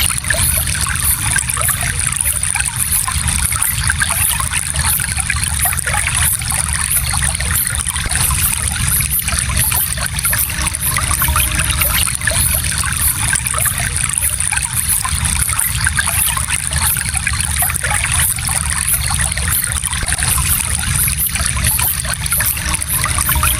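Gentle stream of water flowing and trickling steadily over stones.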